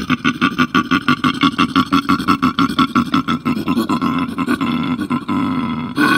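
Koala bellowing: a loud, rapid pulsing, snore-like series of about eight pulses a second that thins out about five seconds in, then a short loud burst near the end.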